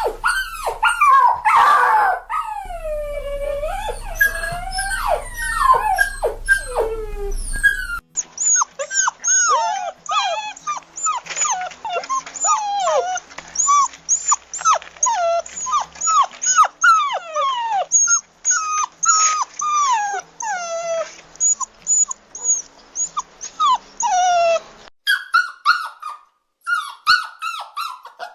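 Puppies whining and crying: a rapid run of short, high cries that slide down in pitch, mixed with a few longer drawn-out whines. The sound switches abruptly about 8 seconds in and again near the end as one recording gives way to another.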